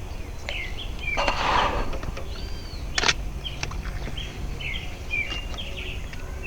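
Songbirds singing, with many short, repeated chirps and whistles throughout. A brief rush of noise comes about a second in and a sharp click about three seconds in, over a steady low rumble.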